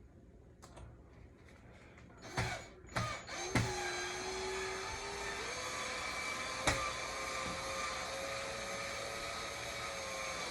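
Power drill driving a Phillips screw: a few knocks as the bit is set on the screw, then the motor runs steadily for about seven seconds, its pitch stepping up partway through, and stops near the end.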